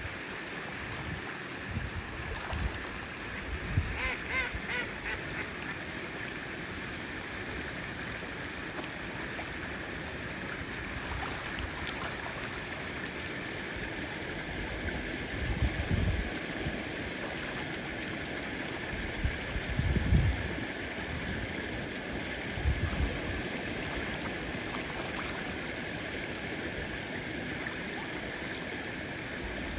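Steady rush of flowing water around a flock of mallard ducks, with a quick run of quacks about four seconds in. A few brief low bumps come later on.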